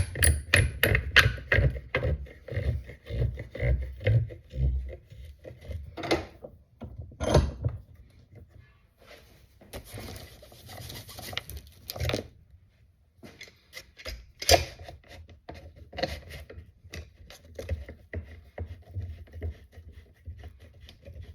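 Workbench handling noises: a quick run of taps and knocks, then scattered knocks with a short stretch of scraping about ten seconds in and a louder knock a little later.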